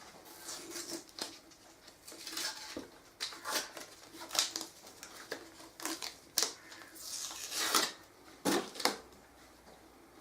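A vinyl banner and its plastic packaging being handled and unfolded: irregular rustling and crinkling with sharp bursts, dying down about a second before the end.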